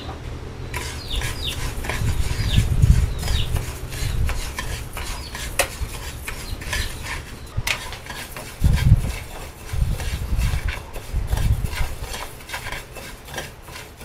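A metal spoon stirs and scrapes raw rice dry-roasting in a non-stick frying pan, with scattered clinks against the pan and a few low rumbles. The rice is being toasted until golden for porridge.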